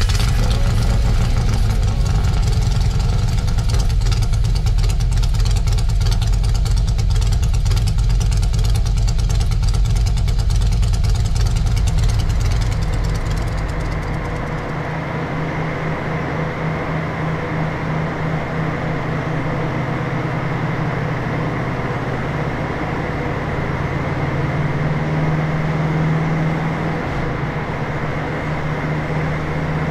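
Harley-Davidson Twin Cam 107 big-bore V-twin running on a chassis dyno during tuning. It is loud for about the first 13 seconds, then drops to a lower, steadier running.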